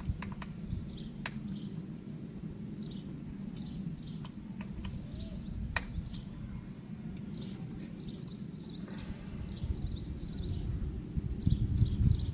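Small birds chirping repeatedly, high and short, over a steady low rumble. A few sharp clicks come through, a brief rustle about nine seconds in, and some heavier knocks near the end.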